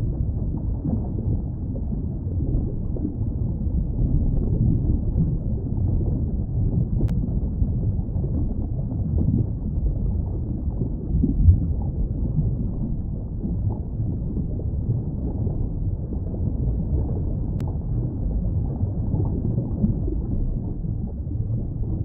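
Underwater ambience: a steady, muffled low rumble of water with faint bubbling, and one brief louder pop about halfway through.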